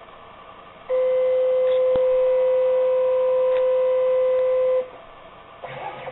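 Z-axis stepper motor of a Joe's hybrid CNC router whining at one steady pitch as it feeds the router bit slowly down onto an aluminum zero plate. The whine starts about a second in, lasts about four seconds, and stops abruptly when the bit touches the plate and completes the probe circuit.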